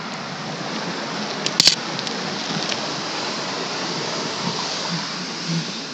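Steady rushing noise of wind over the microphone and bicycle tyres rolling on concrete while riding, with a sharp clack about a second and a half in.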